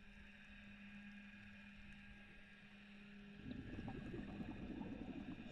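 Faint underwater ambience with a steady low hum, then about three and a half seconds in a louder gurgling rush of scuba exhaust bubbles from a diver's regulator that lasts about two seconds.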